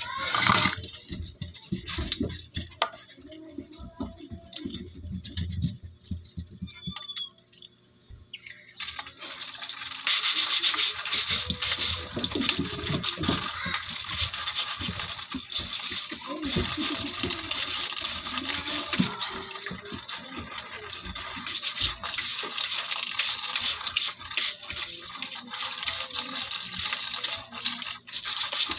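Tap water running into a kitchen sink while crabs are scrubbed by hand, a rapid rasping scrub over the rush of the water. The first several seconds hold only quieter handling sounds; the tap comes on about eight seconds in.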